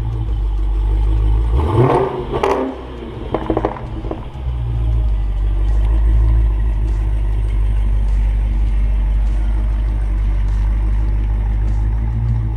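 Road vehicle driving, with a steady low rumble of engine and road noise. It is broken about two seconds in by a few short rattles and clatters.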